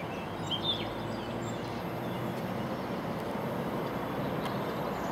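Steady rushing outdoor background noise, with a small bird chirping a few times about half a second in.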